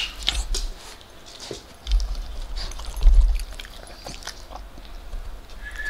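Small terrier licking and smacking its lips close to the microphone, with scattered wet clicks and low thuds about two and three seconds in.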